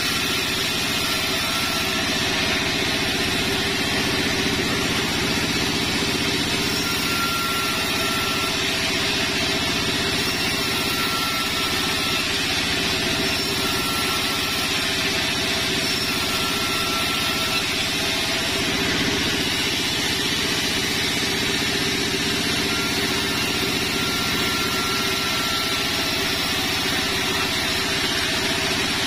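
Sawmill band saw running steadily while ripping sengon wood into rafter stock. The machine drone is constant, with brief high whines recurring every few seconds.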